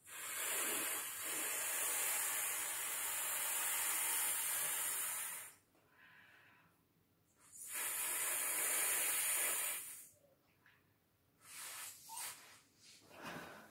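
Air blown by mouth into the valve of an inflatable vinyl paddling pool: a long, even rush of breath lasting about five and a half seconds, a pause, and a second blow of nearly three seconds. Shorter, quieter puffs follow near the end.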